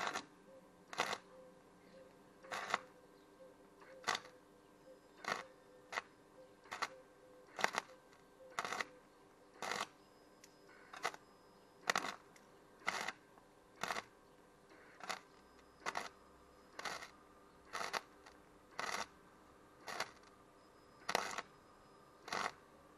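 MIG welder arc firing in short bursts, about one a second, while stitch-welding a trampoline's frame tube. A faint steady hum runs underneath.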